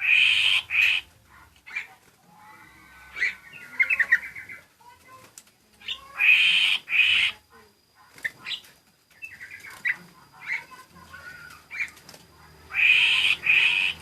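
A songbird known in Java as the plentet calling: three loud, harsh double notes about six seconds apart, with softer chirps and short trills between them.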